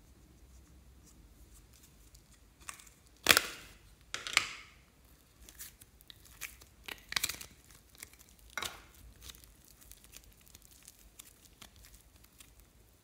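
Thin plastic cup crinkling and crackling as it is squeezed to push out the slime inside, with two loud crackles about three and four seconds in, then scattered softer crackles.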